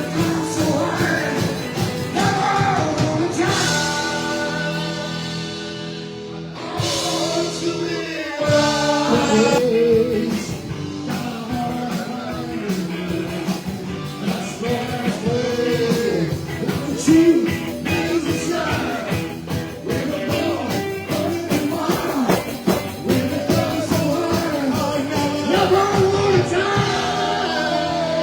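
A live rock-and-roll band playing a song, with a sung lead vocal over drums and amplified instruments.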